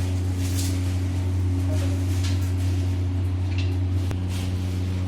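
Electric core drill with a diamond core bit running steadily through a concrete retaining wall: a constant low motor hum, with short hissy scrapes over it a few times and a click about four seconds in.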